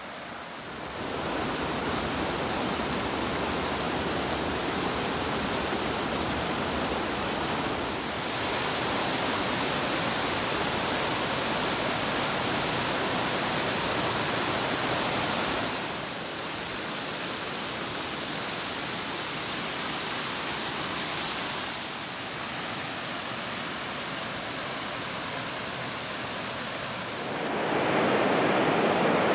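Waterfalls rushing: a steady hiss of falling water, changing in level and tone abruptly every several seconds as one waterfall gives way to the next.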